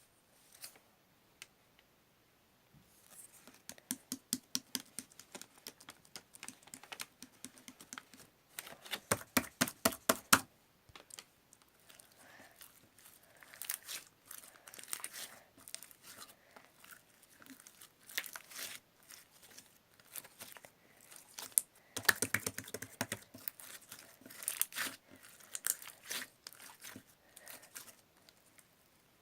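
Silver slime being squished and pressed by hand, giving wet clicks and sticky pops. Loud rapid runs of popping come about nine seconds in and again around twenty-two seconds.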